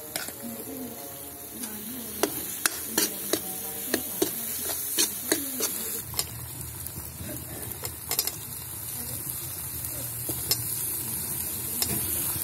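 Steel ladle stirring and scraping an onion-tomato masala frying in oil in a kadai, with a steady sizzle under it. The ladle clacks against the pan many times in quick succession in the first half, then the stirring goes on more evenly.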